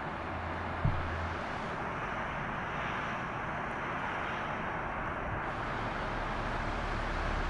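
Steady rushing outdoor background noise, with one brief knock about a second in.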